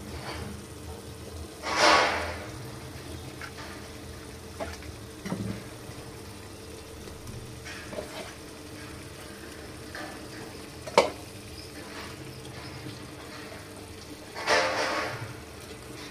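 Marinated fish pieces being laid into hot oil in an aluminium pot, the oil sizzling, with two short louder sizzles as pieces go in and a single sharp tap against the pot.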